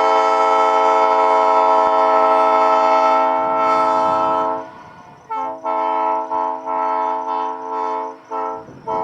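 Nathan P3A-style three-chime air horn (new-cast bells 1 and 2 with an old-cast 4A bell on a low-profile P3 manifold) sounding its chord, the traditional P3 chord raised a half step. One long blast is held for about four and a half seconds, then a quick run of about seven short blasts.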